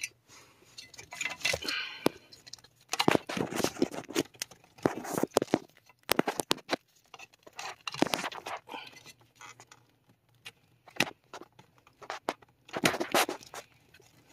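Hands pushing a wiring harness and plastic connectors into a car's under-dash fuse box while plugging in an ignition switch connector: irregular bunches of rustles, scrapes and sharp plastic clicks, with short quiet gaps between.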